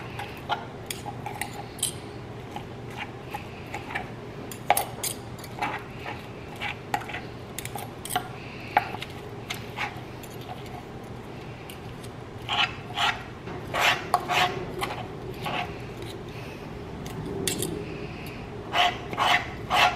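Two metal forks clinking and scraping against each other and on a cutting board as cooked slow-cooker chicken is shredded. Irregular light clicks and scrapes, coming in quicker flurries in the second half.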